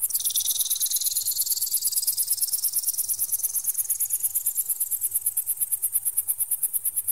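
Electronic bird-repeller sound meant to scare magpies away. Two shrill tones begin together and glide slowly upward in pitch for several seconds, over a very high, rapid pulsing beep of about ten pulses a second.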